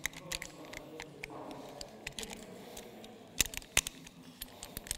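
Metal clicks and clinks of rope access hardware (carabiners and a rope descender) being handled and clipped on a harness, with a few sharper clicks between three and four seconds in.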